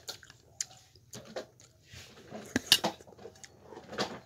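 Metal spoon clinking and scraping against a stainless-steel bowl: scattered light clicks and knocks, the loudest a little under three seconds in.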